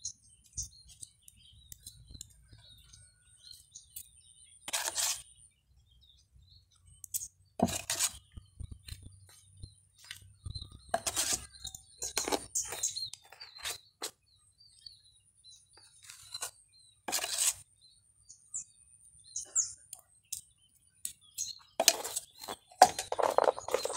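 A small metal trowel scraping over wet cement in short strokes a few seconds apart, with a quicker run of scrapes and knocks near the end, against birds chirping in the background.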